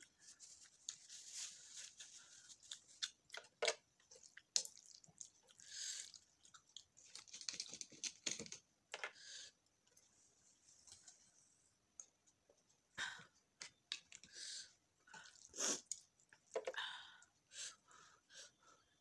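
Close-up chewing of spicy stir-fried noodles eaten with wooden chopsticks: wet, irregular mouth noises broken by scattered sharp clicks, with a quieter stretch about ten seconds in.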